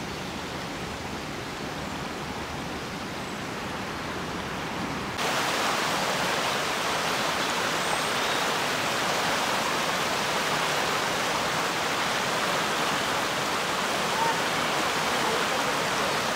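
Floodwater rushing, a steady wash of noise; about five seconds in it jumps to a louder, brighter rush of fast-flowing water.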